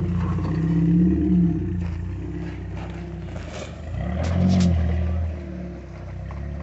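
Jeep rock crawler's engine running under load as it climbs over boulders, swelling twice as the throttle is worked. A few sharp knocks come near the middle.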